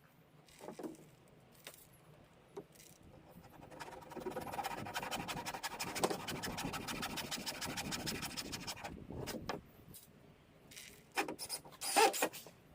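Scraping and rubbing against wood for about five seconds, with a few short scuffs before it and a cluster of sharp knocks near the end.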